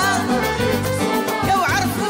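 Live band playing a Moroccan popular song: a drum kit keeps a steady beat under a wavering lead melody line and a bass.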